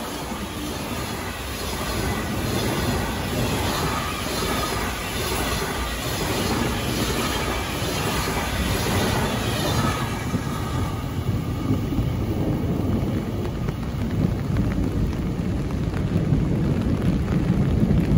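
Passenger coaches of a high-speed express train rushing past, wheels clattering rhythmically over the rails. The train noise drops away about ten seconds in as the last coach recedes. After that come rain and a low rumble of thunder that swells near the end.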